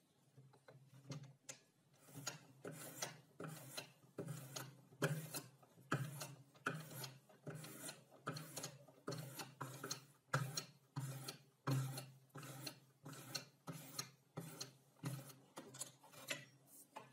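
Sharpening stone on a jig's guide rod stroked back and forth along the edge of a clamped kitchen knife, steel scraping on abrasive about twice a second.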